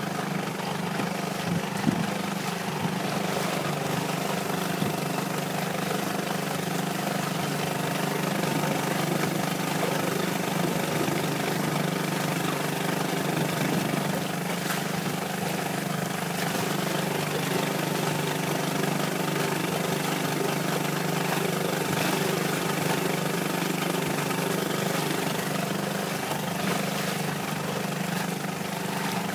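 Honda four-stroke outboard motor running at a steady speed, driving the boat along, with water and wind noise over it.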